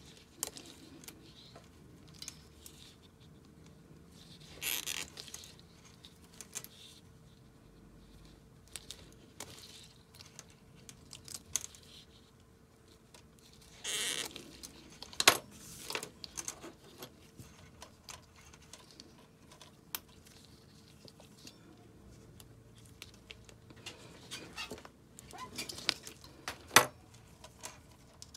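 Hand wire stripper working on thin black PSU wires: scattered sharp clicks as the jaws close, and short scrapes as the insulation is pulled off, with rustling of latex gloves. A faint steady hum runs underneath.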